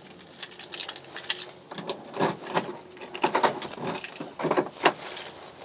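A bunch of keys jangling and clicking as a key is worked in a Rover 200's door lock, in a string of short, separate rattles and clicks.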